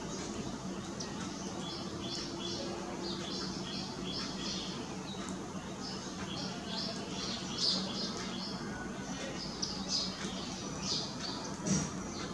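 Indian silverbills (white-throated munias) calling at a seed feeder: a busy run of short, high chirps, several a second, over a steady low hum.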